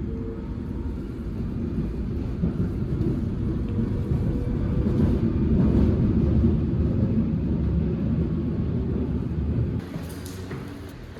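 Steady low rumble of a moving vehicle, easing off about ten seconds in.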